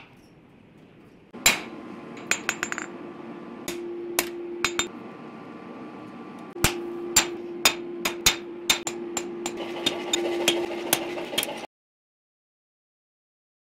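Blacksmith's hammer striking a red-hot knife blade on a steel anvil, each blow ringing brightly, over a steady ringing tone. A few scattered blows come first, then a run of quicker ones, about two to three a second, and the sound cuts off suddenly near the end.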